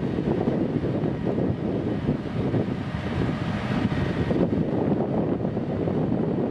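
Gusty wind buffeting the microphone over the steady running of a truck-mounted crane as it hoists a light aircraft.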